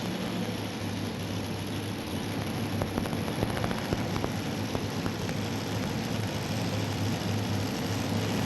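Modified pulling tractor's engine running at a steady idle, under a haze of arena noise, with a few faint ticks in the middle.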